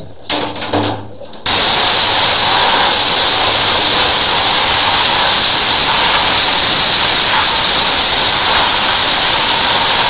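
High-pressure water jet from a drain-cleaning washer lance blasting the inside of a sump pit: a loud, steady hiss that starts about one and a half seconds in.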